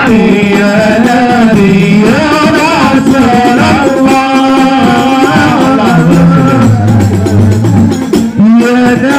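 Islamic sholawat devotional singing: a male lead voice sings a melody with long held notes, accompanied by a hadrah ensemble of hand-played rebana frame drums.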